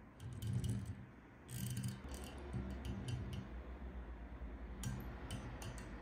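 Small wheels of a diecast airliner model's landing gear rolling across a desk as it is pushed by hand: a few short low rumbles in the first half, with light clicks and ticks, and a cluster of clicks near the end.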